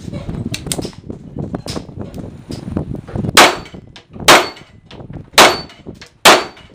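Star Model B 9mm pistol fired four times at a steel plate rack, the shots about a second apart from about halfway through, each followed by a faint ring from the struck steel plate. Fainter clicks and knocks come before the first shot.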